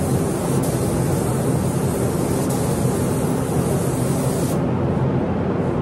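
Compressed-air paint spray gun hissing steadily as it sprays clear coat onto a truck's bed side. The hiss cuts out about a second before the end as the trigger is let go, leaving a steady low rumble underneath.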